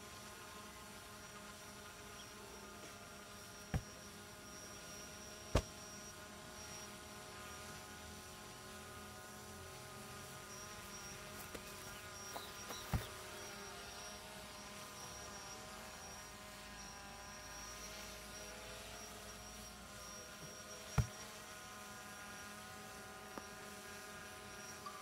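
A steady buzzing hum made of several held tones, broken by four sharp thuds spread through it.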